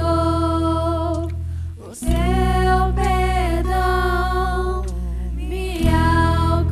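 Worship band playing a Portuguese-language song: several voices, mostly women, sing a melody of long held notes over steady bass and keyboard. The music drops out briefly about two seconds in, then comes back.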